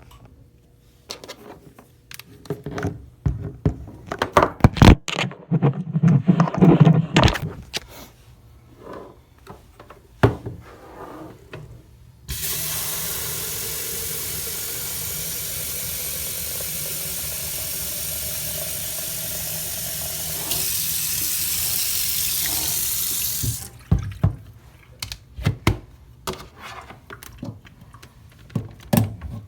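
Water running from a tap for about eleven seconds, louder for its last few seconds, with knocks and clatter of handling before and after.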